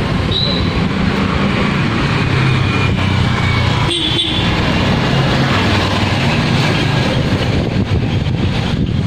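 Steady low rumble of a motor vehicle running close by.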